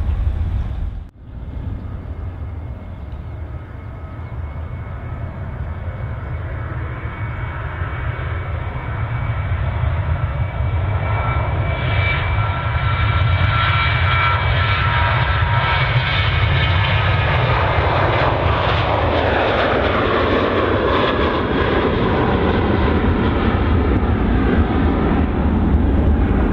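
Boeing 737-800 jet engines at takeoff thrust, heard down the runway and climbing away: a deep steady rumble that builds, with a fan whine that grows and then slides down in pitch as the jet passes, giving way to a broad roar near the end.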